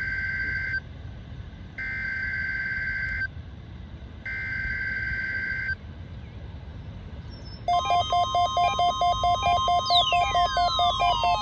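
NOAA weather radio sending its test alert: three harsh two-tone data bursts of about a second and a half each, the digital SAME header. About eight seconds in, a louder electronic warning alarm starts, a steady tone with a fast pulsing beat and several falling sweeps.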